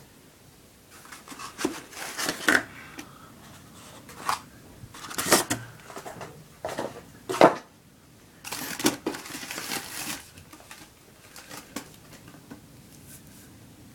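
Corrugated cardboard packing and tubes being lifted and slid out of a cardboard shipping box: a run of scraping and rustling with a few knocks, the sharpest about seven seconds in, then fainter handling.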